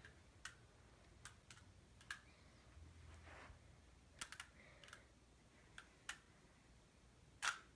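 Faint, irregular plastic clicks of a Rubik's cube being handled and its layers twisted, about a dozen scattered ticks with one louder click near the end.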